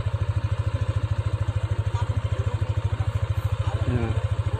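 Motorcycle engine idling steadily, with an even, fast pulse of about fourteen beats a second.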